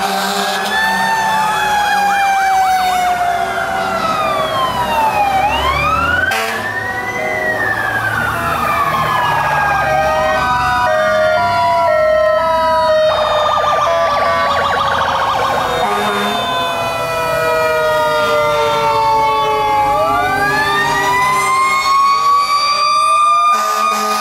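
Several fire trucks' sirens wailing together as the trucks pass, overlapping pitches sweeping up and down, with broken repeating tones in the middle. One siren winds up near the end.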